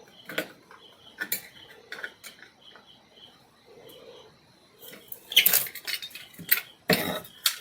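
Sharp clicks and light metallic clinks of hand tools, screws and switch-board fittings being handled during electrical wiring: a few spaced clicks, then a busier run of clatter from about five seconds in.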